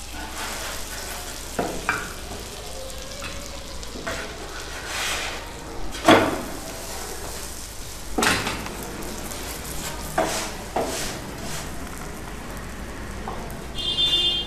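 A stuffed paneer kulcha sizzling softly on a hot tawa while a wooden spatula presses and turns it. About five sharp scrapes and knocks of the spatula against the pan stand out, the loudest about six and eight seconds in.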